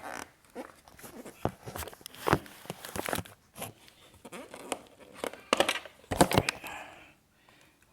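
A plastic cover being taken off a motorcycle by hand: irregular clicks, knocks, scraping and rustling, with a denser cluster of handling noise about two-thirds of the way in.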